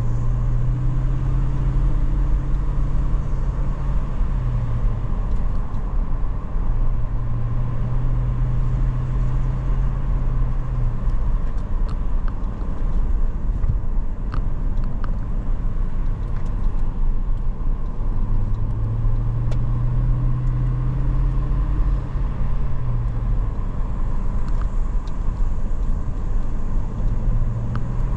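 Car engine and road rumble while driving. The engine note drops and climbs back up a few times over a steady deep rumble.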